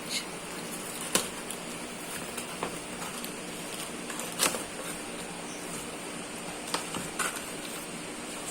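Handling noise: scattered sharp clicks and taps, as of a plastic selfie stick and its packaging being handled, over a steady faint hum. The loudest clicks come about a second in and about four and a half seconds in.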